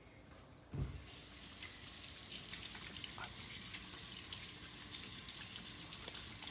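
Kitchen water tap turned on a little under a second in, then water running steadily into the sink.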